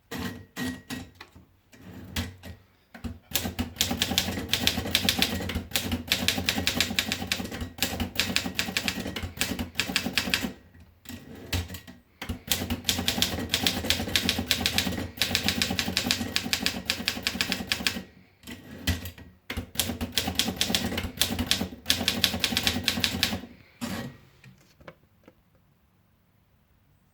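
Remington Senior-Riter manual typewriter being typed on: fast runs of key strikes clacking against the platen, broken by a few short pauses, then stopping about three seconds before the end.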